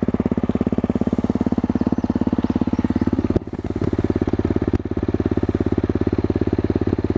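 Honda CRF250L's single-cylinder engine idling through an FMF Q4 slip-on muffler with its quiet-core insert, a steady, even exhaust beat. The level drops briefly about halfway through, then settles back to the same idle.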